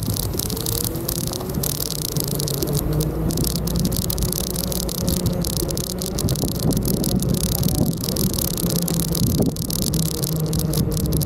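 Steady low engine hum with a constant rattling hiss over it.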